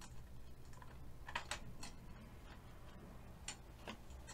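A handful of faint sharp clicks and small knocks, in two clusters, as a plywood workpiece held down with double-sided tape is pried and lifted off a 3018 mini CNC's aluminium bed, over a low steady hum.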